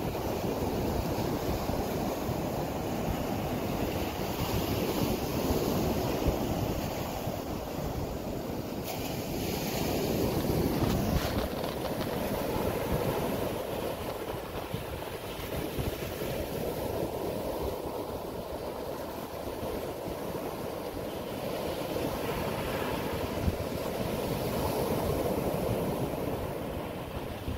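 Steady rushing of wind and surf, with wind buffeting the microphone, swelling and easing over several seconds.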